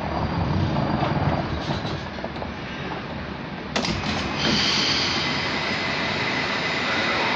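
Moscow metro carriage of the Big Circle Line in motion, heard from inside: wheel and running-gear rumble. About four seconds in there is a sharp click, after which the sound steps up, with a steady high whine over the rumble.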